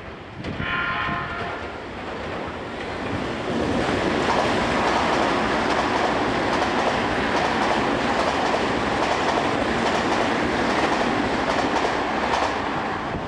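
Tokyu 5050 series 4000-subseries electric train running through the station at speed: a short horn blast about half a second in, then steady, loud wheel-and-rail noise with clickety-clack over the points from about four seconds in.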